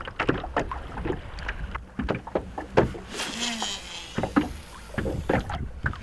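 Irregular knocks and water slapping against the hull of a small fishing boat, with a hissing rush lasting about two seconds in the middle.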